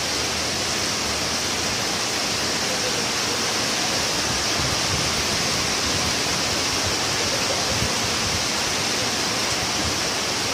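Floodwater rushing, a steady roar of fast-flowing water.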